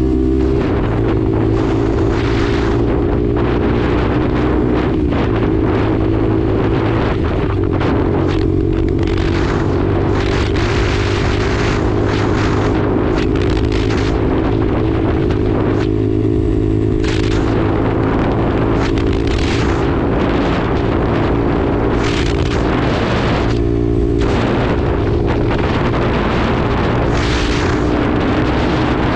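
Lexmoto LXR 125's single-cylinder 125cc four-stroke engine running steadily at road speed, its pitch holding nearly level. Wind buffets the microphone in repeated gusts over it.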